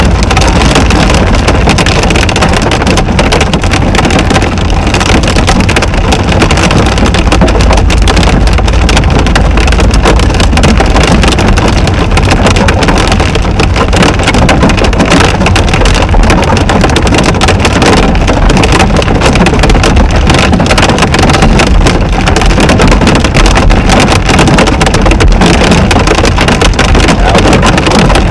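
Heavy storm rain pelting a car's roof and windscreen, a dense unbroken drumming heard from inside the cabin, with a strong low rumble underneath.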